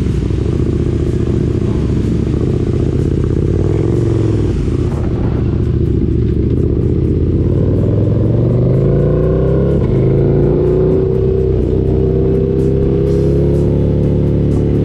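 Motorcycle engines running at idle. About six seconds in, the onboard motorcycle pulls away, its engine note rising as it accelerates and then running at a steady pitch.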